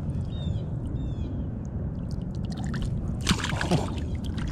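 Water splashing and sloshing a little over three seconds in, as a freshly caught peacock bass is released by hand back into shallow water. A few short, high chirps come in the first second.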